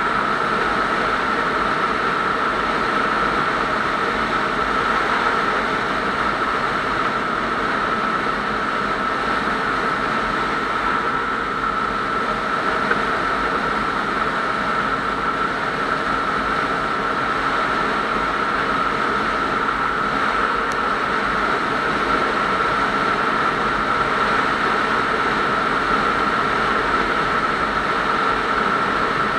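Motorcycle cruising at a steady highway speed: the engine's drone under a rush of wind over the camera, with a steady high whine.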